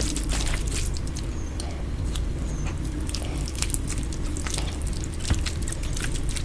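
Close-miked eating sounds sped up to double speed: a quick run of wet mouth clicks and squishes over a steady low hum.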